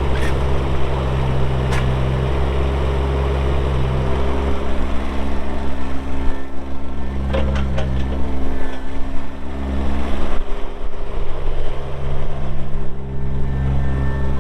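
Bobcat E20 mini excavator's Kubota diesel engine running steadily, its note shifting as the hydraulics take load, with a few sharp metallic clanks from the machine working.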